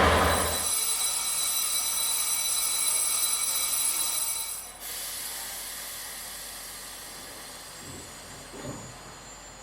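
A steady hiss of air at the train with thin, high whistling tones over it, cutting off sharply about five seconds in; a fainter noise then fades away.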